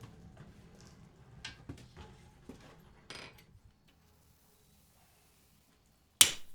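A few faint clinks and knocks of shop work, then a spell of near silence, and near the end one loud ringing hammer blow on steel at the anvil.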